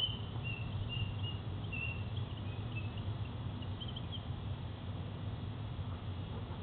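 A whistle blown in short, high squeaky toots, a string of quick chirp-like notes that stop a little over halfway through, over a steady low rumble.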